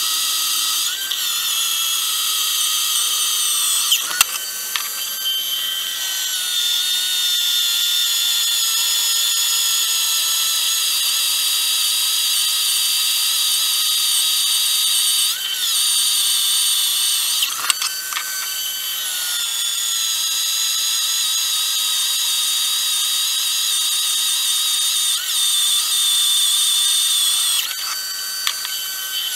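Electric drill in a drill stand, running with a steady high whine as the bit is fed down into a metal plate. Its pitch sags slowly under load, and the sound breaks off and picks up again briefly about four times.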